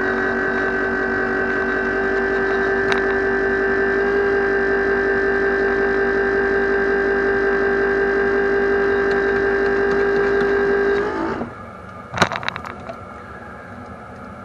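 A steady, loud electrical whine from the bus, holding one pitch for about eleven seconds and then cutting off, followed a second later by a sharp click.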